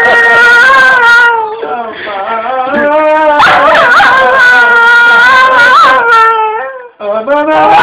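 A dog howling in long, wavering, song-like notes, in the manner of amanes singing, with a short break about a second and a half in and a brief silence near the end.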